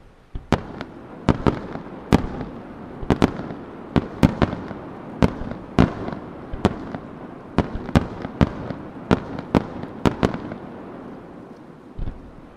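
Aerial firework shells bursting in a rapid volley of sharp bangs, up to about three a second, with noise lingering between them. The volley stops about ten seconds in, and one last bang comes near the end.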